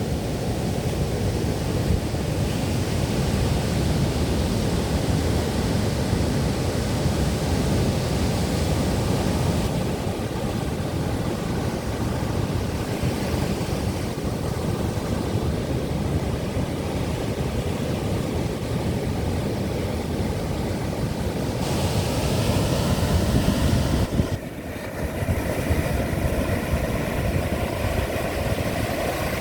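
Atlantic surf breaking on the shore under strong wind, with heavy wind rumble on the microphone. The noise is loud and continuous, with a brief lull about three-quarters of the way through.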